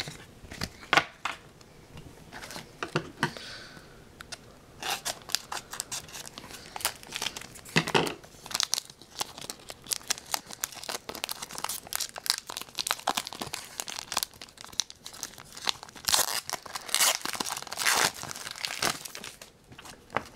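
Trading card pack wrapper crinkling and tearing, with cardboard trading cards being handled and shuffled, in irregular bursts of sharp crackles and rustles.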